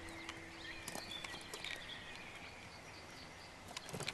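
Faint forest ambience: short bird chirps and whistles, with scattered small clicks and scratches.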